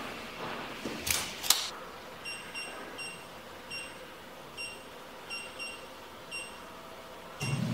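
Touchscreen control panel of a program-controlled guillotine paper cutter beeping as keys are pressed: about nine short, identical beeps at an uneven pace, some in quick pairs. About a second in come two sharp noises, and near the end the cutter's motor starts with a low hum.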